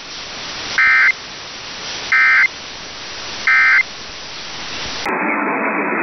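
Emergency Alert System SAME data tones: three short identical buzzing bursts, each about a third of a second and about 1.4 seconds apart, over AM radio hiss. This is the end-of-message code that closes an EAS weekly test. Near the end the hiss changes abruptly to a different, narrower static.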